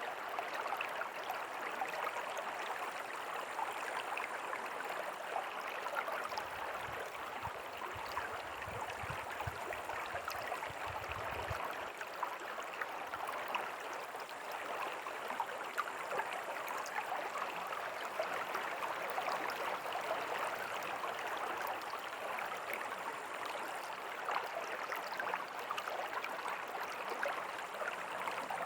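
River water flowing steadily, a constant rushing and gurgling. A low rumble joins it for several seconds partway through.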